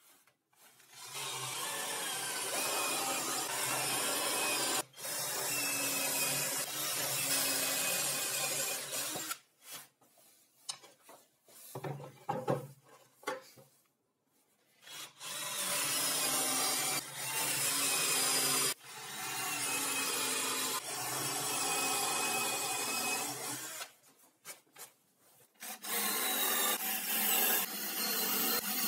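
Cordless drill boring into plywood and particleboard, running in long spells of several seconds with short stops and brief bursts between them.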